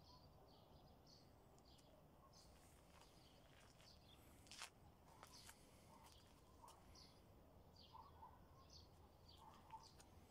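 Near silence: faint outdoor ambience with scattered distant bird chirps and a few faint clicks.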